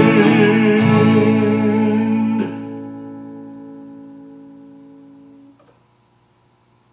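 Acoustic guitar strumming the closing chords of a gospel song, ending about two and a half seconds in. The last chord then rings out, fading steadily, until it is muted about five and a half seconds in.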